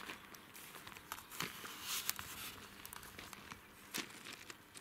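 Footsteps crunching through dry grass and dead twigs, with irregular crackles and snaps and a louder crunch about two seconds in.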